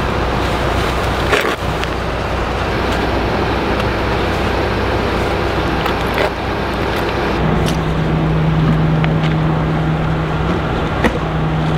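Steady low rumble of a vehicle engine idling, with a steady hum joining about seven seconds in and a few light clicks.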